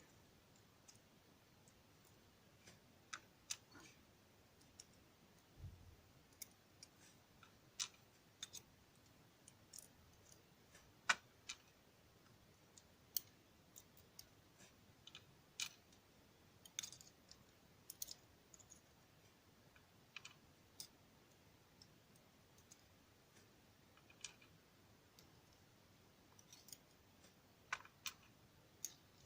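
Faint, sparse, irregular clicks of small metal parts: driver pins and springs being taken out of a Dom ix Saturn pin-tumbler lock.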